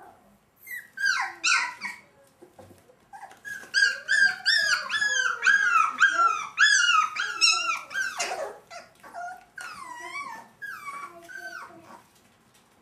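Sheltie (Shetland sheepdog) puppy whining and yipping. A run of high-pitched, arching whines, about two a second, is loudest in the middle; a few quieter whimpers follow toward the end.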